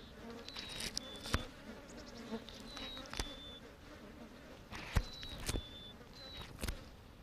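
Flies buzzing around a carrion carcass. A bird's short two-note whistle, the second note slightly lower, repeats several times, and a few sharp clicks sound, the loudest about five seconds in.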